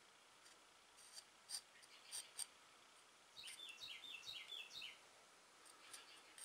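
Near silence: faint light clicks and scrapes of a small tool working sealant into the seal slot of a Stihl SH86C blower's crankcase half. A run of faint, quick high chirps comes about halfway through.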